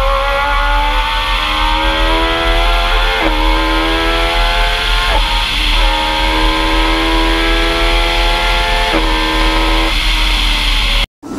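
Race engine of a Talex M2+ hillclimb prototype, heard onboard at full throttle. Its pitch climbs steadily in each gear and drops sharply at the gearshifts about three, five and nine seconds in, over a steady wind rush. The sound cuts off abruptly near the end.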